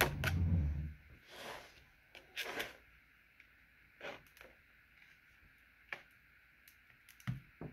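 A kitchen knife scraping and tapping at the hard chocolate shell of a cauldron-shaped candy, in short separate strokes a second or two apart, the blade not getting through. A dull low thump of the plate and candy being handled comes at the start.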